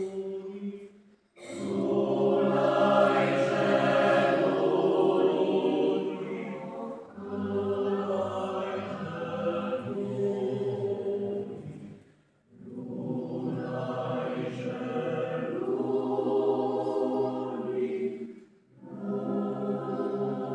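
Mixed choir of men's and women's voices singing unaccompanied in sustained chords, in long phrases broken by brief silences about a second in, about twelve seconds in and near the end.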